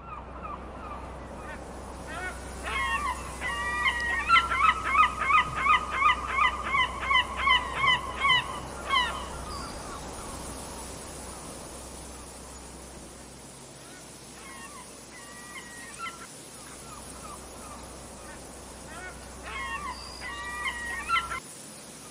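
Seagulls calling over steady wind: a long run of rapid, repeated calls at about two a second for several seconds, then two shorter, fainter bouts of calls later on.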